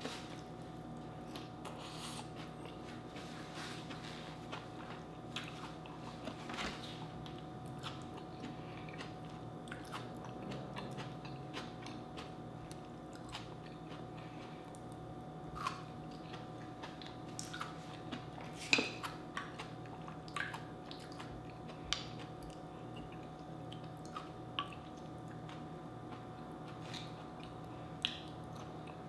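Close-miked eating sounds of a person biting and chewing raw vegetables (tomato slice, okra) dipped in sauce, and rice: wet chewing with scattered sharp smacks and clicks, the sharpest about two-thirds of the way through. A faint steady hum runs underneath.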